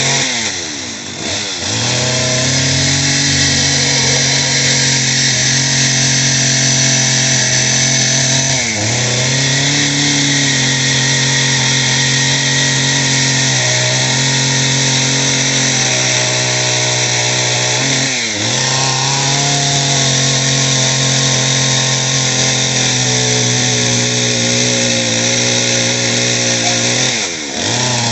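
Stihl chainsaw running at high revs, its engine pitch dipping briefly and climbing back about five times.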